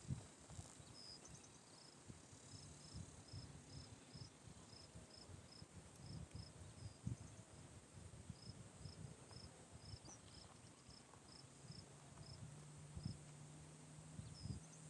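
Faint outdoor morning sounds: a steady series of short, high-pitched chirps, about two to three a second, with brief pauses. Soft low thuds sound underneath, and a low steady hum joins near the end.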